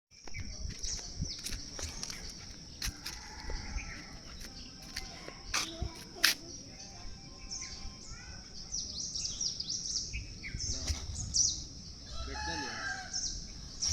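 Birds calling, with many quick, high chirps and short glides following one another. A few sharp knocks stand out, the loudest about six seconds in.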